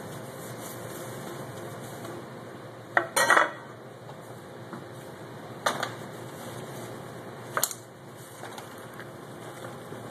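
Ceramic dinner plate and kitchen utensils clattering and knocking on a wooden cutting board: a cluster of loud clatters about three seconds in, then two single knocks a few seconds apart.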